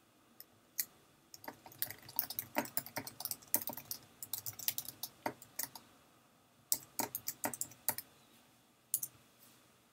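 Typing on a computer keyboard: quick runs of key clicks for several seconds, a short pause, another run, then a single click near the end.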